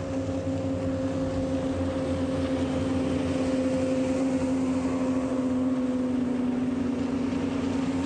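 Boat engine running steadily under way, a constant hum whose pitch sinks slightly over several seconds.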